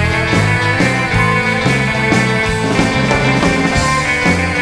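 Background surf-rock music: an instrumental with electric guitar over bass and drums at a steady beat.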